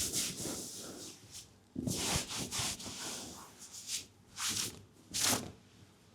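Rubbing strokes of a leg massage, friction over skin in four rough bursts with short pauses between them.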